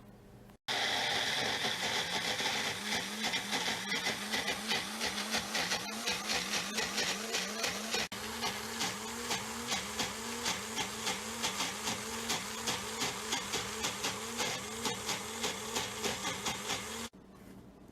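Electric blender running, blending soaked cashews into a thick cream cheese; it starts suddenly, pulses about three times a second as the thick mixture churns, and stops abruptly near the end.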